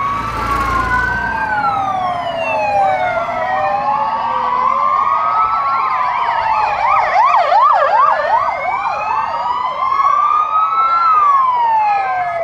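Several emergency-vehicle sirens sounding together, overlapping slow wails that rise and fall, with one switching to a fast yelp for a few seconds around the middle. A fire engine's low rumble is heard briefly as it passes in the first second or so.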